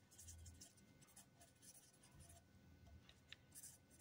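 Faint scratching of a pen writing out a formula, in short irregular strokes with a small tick a little after three seconds in.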